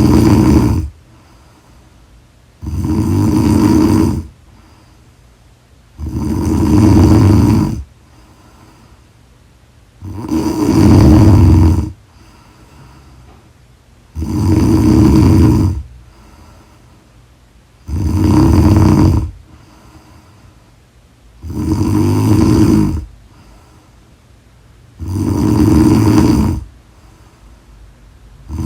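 A woman snoring steadily and loudly, with about eight snores evenly spaced roughly every three and a half seconds. Each snore lasts about a second and a half, with quiet pauses between.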